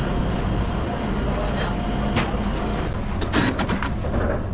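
Steady ship engine-room machinery noise with a constant low hum. A few sharp clicks come near the middle, and a quick run of metallic clicks and rattles about three and a half seconds in.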